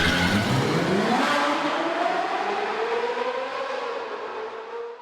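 Car engine accelerating, its pitch rising slowly and steadily, the sound thinning and fading out near the end.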